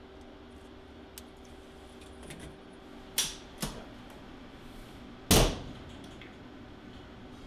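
Environmental test chamber door being shut and latched: two sharp clacks about three seconds in, then a loud thump of the heavy door a little after five seconds.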